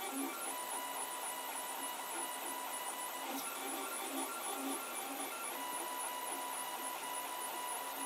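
A Protomaker Black Sprint 3D printer printing PLA pins: its stepper motors hum in steady pitched tones, with short, quickly repeating moves of the print head.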